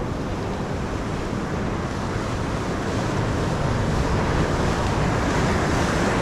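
Sea surf washing onto the shore, a steady rushing that grows louder about halfway through, with wind rumbling on the microphone.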